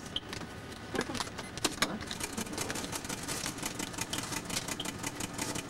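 Rapid, irregular clicking and clattering, growing denser about two seconds in, over steady background noise.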